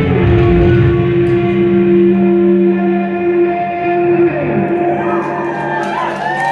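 Live rock band's closing guitar chord ringing out through echo effects, the bass and drums dropping away about half a second in. From about four and a half seconds in, wavering whistles come from the crowd as the song ends.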